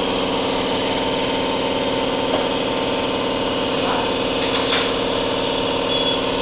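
A small engine running steadily, with a short hiss about four and a half seconds in.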